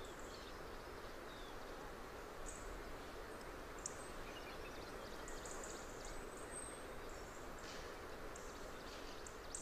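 Faint, steady background ambience with a few faint, short high ticks.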